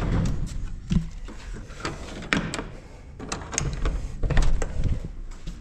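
Metal-clad barn door being pulled shut and latched by hand: scattered knocks, scrapes and sharp clicks of wood and metal as a metal pin is pushed into the door frame.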